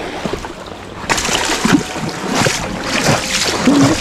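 Lake water sloshing and splashing around a person wading waist-deep, with wind on the microphone. The water noise grows louder and brighter about a second in.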